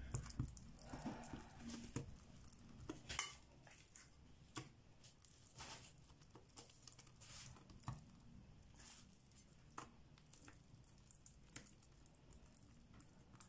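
Faint squishing and light scraping as a metal spoon spreads minced-meat filling over a lavash sheet, with scattered small clicks of the spoon and one sharper click about three seconds in.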